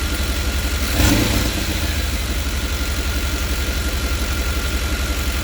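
5.7-liter TBI V8 idling with the interior engine cover off, running louder than normal because of an exhaust leak somewhere in the engine compartment. A brief louder surge comes about a second in, then the steady idle goes on.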